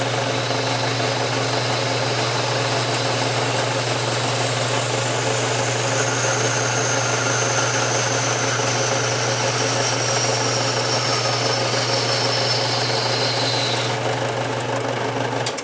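A 4x6 horizontal metal-cutting bandsaw running steadily as it cuts a small forged hammerhead off a steel bar. The motor hum is under the hiss of the blade. It starts abruptly, runs for about fifteen seconds with a faint high whine that falls in pitch over the second half, and stops abruptly as the cut finishes.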